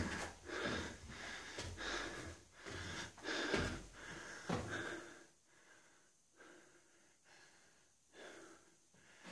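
A person breathing hard and heavily, with loud breaths about once a second, out of breath after crawling through a cramped passage. The breathing dies down to near quiet for the last few seconds.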